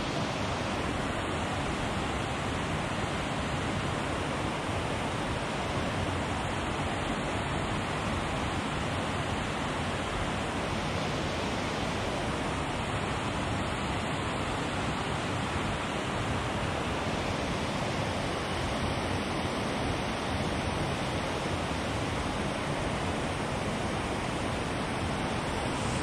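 Water pouring over a small dam and waterfall: a steady, even rushing that holds at one level throughout.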